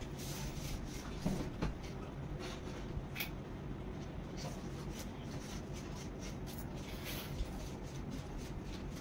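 Quiet eating sounds: fingers mixing rice and curry on steel plates, with scattered light clicks and scrapes against the metal, over a steady low hum.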